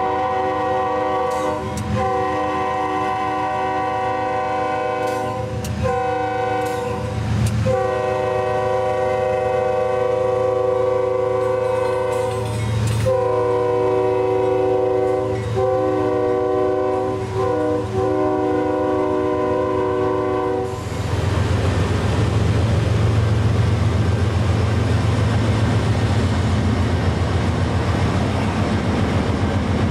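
A CSX freight locomotive's multi-chime air horn sounding a series of long blasts with short breaks. About two-thirds of the way through, the horn cuts off and the loud, even rumble of the train passing takes over.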